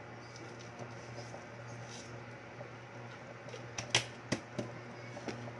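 Steady low hum of an induction cooker heating a pot of soup. About four seconds in there is a quick run of four or five sharp clicks and taps.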